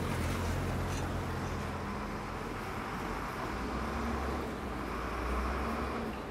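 City street traffic: vehicle engines running and tyre noise on the road, a steady low rumble.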